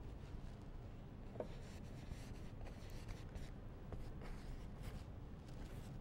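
Faint, irregular scratchy strokes of a paintbrush dragging oil paint across a canvas, over a low steady background hum.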